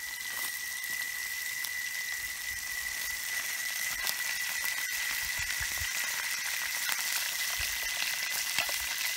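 Fish frying in oil in a pan over a wood fire: a steady sizzle with scattered small crackles. A thin, steady high-pitched tone runs underneath.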